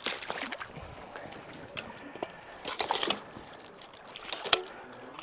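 River water lapping and trickling against a gravel bank, with faint distant voices and a single sharp click about four and a half seconds in.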